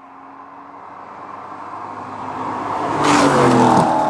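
Chevrolet Corvette C5 Z06 with its 5.7-litre LS6 V8 driving past: the engine and tyre noise grow steadily louder as the car approaches, peak about three and a half seconds in, and the engine note drops in pitch as it goes by.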